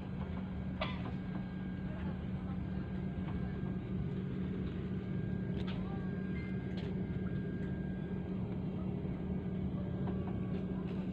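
Steady drone inside an airliner's passenger cabin: a constant low hum with a few faint clicks.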